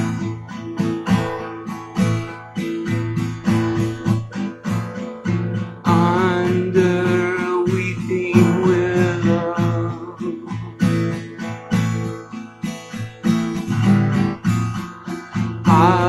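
Acoustic guitar strummed in a steady rhythm, chords ringing between strokes. A wordless vocal line with vibrato comes in about six seconds in and fades out around ten seconds, returning right at the end.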